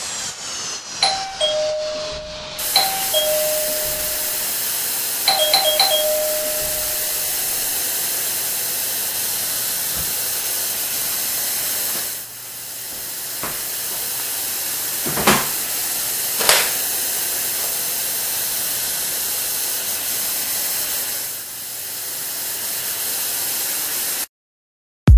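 A two-note ding-dong doorbell chime, falling from the higher note to the lower, sounds three times over a steady hiss. Later come two short sharp swishes, and the sound cuts to silence just before the end.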